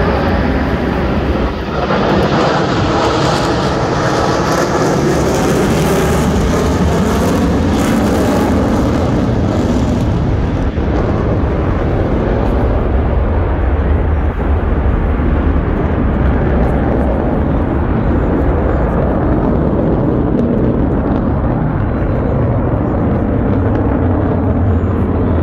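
Jet roar from the Blue Angels' four F/A-18 Super Hornets flying in formation, loud and steady. The high hiss fades out about ten seconds in as the jets draw away, leaving a lower rumble.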